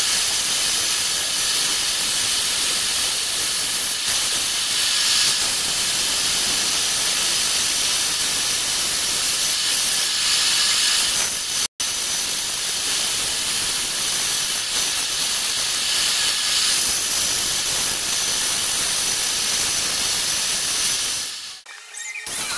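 Band saw ripping a thick wooden beam, the blade cutting with a steady high hiss. The sound cuts out for an instant about halfway through and drops away just before the end.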